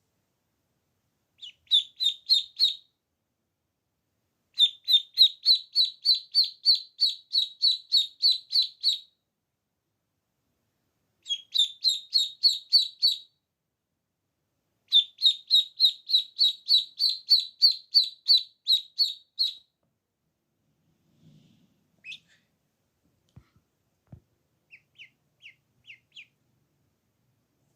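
Duckling peeping: loud, high, repeated peeps, about three a second, in four runs of a few seconds each with short pauses between, then only a few faint peeps near the end.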